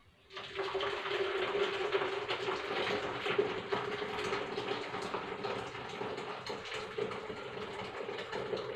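Boiled ginger and lemon-peel infusion poured from a pot through a small sieve into a plastic jug: a steady stream of liquid splashing into the jug with a steady ringing hum, starting about a third of a second in.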